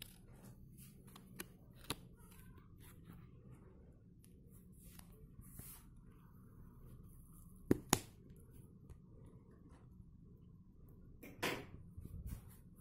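Faint handling noise from fingers pressing and fitting the eye pieces on a foam mascot head: scattered small clicks and taps, two sharp clicks close together about eight seconds in, and a brief louder scrape near the end, over a low steady hum.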